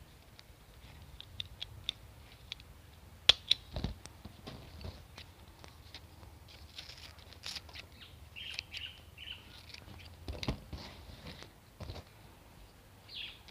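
Banana leaves being handled and trimmed with scissors: faint rustling, snips and a few sharp clicks. Small birds chirp now and then in the background.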